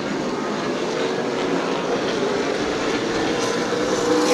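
Super late model stock cars' V8 engines running at racing speed around the short oval, a steady sound with no break.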